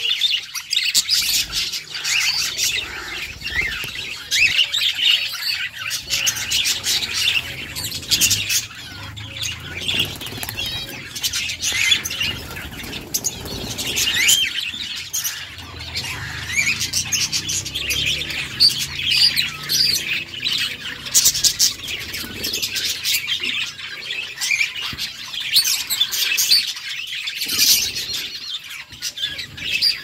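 Several budgerigars chattering and warbling together: a dense, continuous stream of quick, high chirps.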